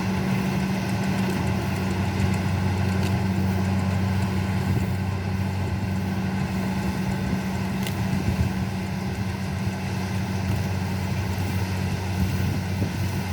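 Engine of a rice harvesting machine running steadily at an even pitch.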